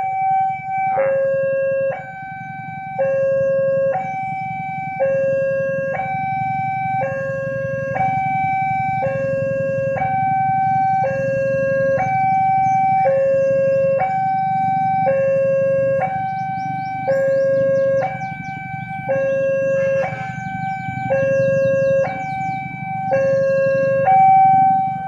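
Railroad crossing warning alarm sounding a steady two-tone high-low pattern, about one tone a second, warning of an approaching train. A low rumble of waiting traffic runs underneath.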